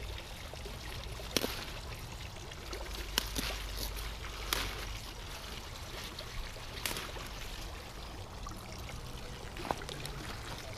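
Large tree collard leaves being snapped off the stalk by hand, a few sharp snaps a second or two apart with leaf rustling, over a steady low background rumble.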